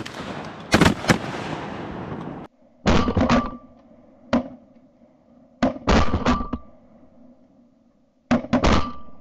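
Shotguns fired repeatedly at flying geese, sharp reports coming in quick clusters of two or three. Many of the shots are heard through a camera mounted on the gun itself, so they sound thinner.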